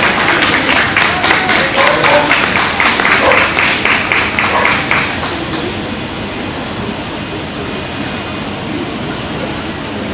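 Audience clapping in a steady rhythm, about four claps a second, that dies away about five seconds in, leaving a quieter murmur of voices in a large hall.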